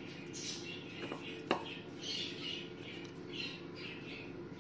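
Hands turning boiled drumstick pieces in a dry spice and rice-flour coating in a bowl, with a single sharp tap about one and a half seconds in. Repeated short bird-like chirps and a steady low hum run underneath.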